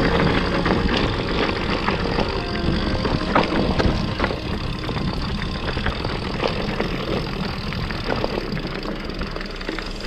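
Mountain bike with 27.5-plus tyres riding down a rocky, loose singletrack: tyres crunching over gravel and stones while the bike rattles and knocks unevenly over the bumps, with a hit about three seconds in the loudest.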